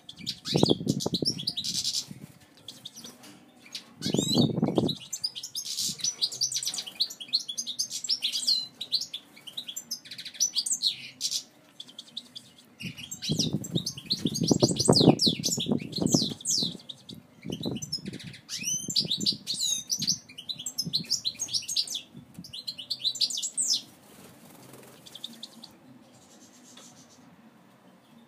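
European goldfinch singing: long runs of fast twittering chirps, trills and sweeping notes that stop about four seconds before the end. Several louder low rushing bursts come in between.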